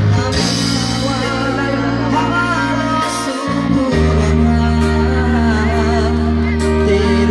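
Live music through a PA speaker: held bass chords with a singing voice wavering over them, the bass shifting to a new chord about four seconds in.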